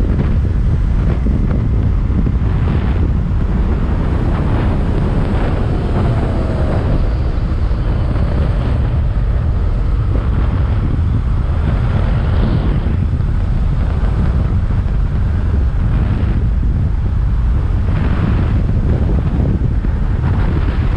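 Wind buffeting the microphone of a motorcycle at riding speed: a loud, steady low rumble that masks most other sound.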